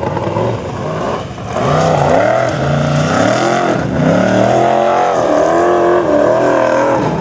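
Formula Offroad buggy's engine revving hard under load as it climbs a steep sand hill. Its pitch keeps rising and falling, with a big surge of revs about a second and a half in.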